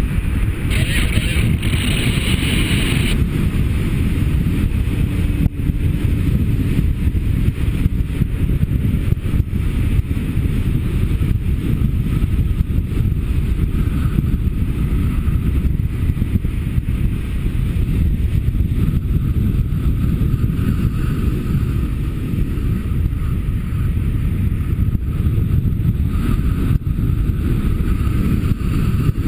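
Wind noise from air rushing over a paraglider's body-worn camera microphone in flight: a steady, loud, low rumble. A brighter hiss rises over it about a second in and lasts about two seconds.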